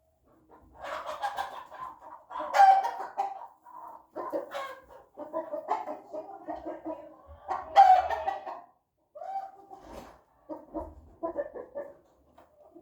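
Chicken calling: a run of clucking calls, with two loud, drawn-out calls about two and a half and eight seconds in.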